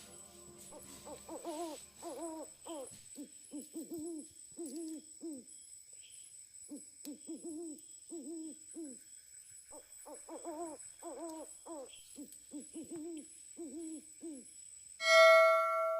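An animal in the forest giving repeated short hooting calls, each dipping in pitch, in runs of about two a second with short pauses, over a faint steady high whine. About a second before the end a loud ringing chime sounds suddenly and keeps ringing.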